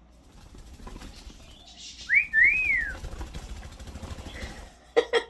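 Pet bird whistling: two quick linked whistles that rise and fall, about two seconds in, over a low rustle. Two sharp, short falling cries come near the end.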